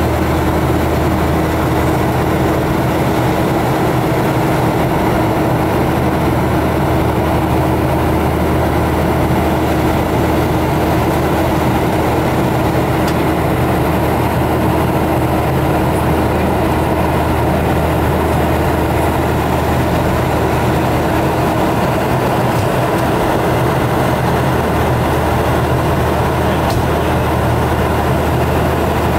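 Jet airliner cabin noise during the climb after takeoff: the engines and the rushing air make a loud, steady drone with a constant low hum and a steady mid-pitched tone.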